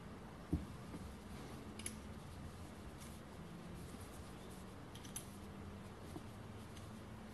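Faint handling of small steel parts as a trimmed bolt is fitted into the tail of a Morse taper live centre. A soft knock comes about half a second in, then light metallic clicks near two and five seconds in, over a faint steady hum.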